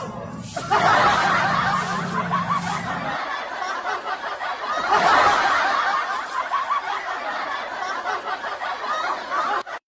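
A group of people laughing together, breaking off abruptly near the end.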